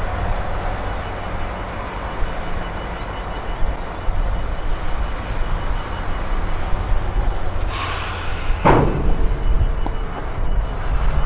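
Volvo wheel loader's diesel engine running with a steady low rumble as it reverses from the hopper wagons with its bucket raised. About eight seconds in comes a brief hiss, then a single sharp knock.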